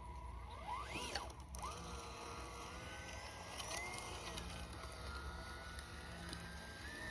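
Brushless electric motor of a 1/18-scale Red Cat Scout 2 RC crawler whining as it crawls. The whine climbs sharply in pitch about a second in, drops out briefly, then holds a steady pitch with a slight rise and fall in the middle.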